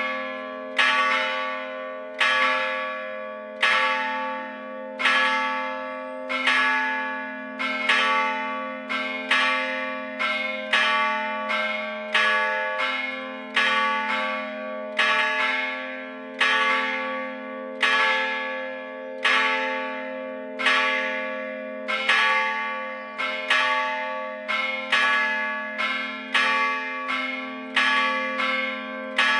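Two church bells cast by the Gescher foundry (bells I and II of a four-bell peal), hung still and struck by hammers rather than swung. They ring in turn at about one stroke a second, each stroke ringing on into the next, with a steady low hum beneath.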